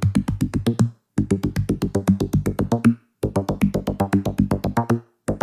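Electronic background music with a fast drum-machine beat and synth notes, stopping briefly three times.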